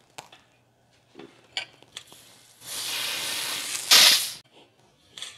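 Fuel filler cap being unscrewed on a fully pumped Coleman 242 lantern: a few faint clicks as the cap turns, then pressurized air hissing steadily out past the loosening cap for over a second, ending in a loud, brief spurt as the pressure blows the tank's liquid out through the filler hole.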